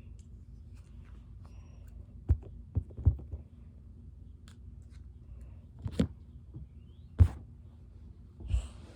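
Handling noise: a handful of separate knocks and thumps, two or three close together a little over two seconds in, then single ones about six, seven and eight and a half seconds in, over a low steady hum.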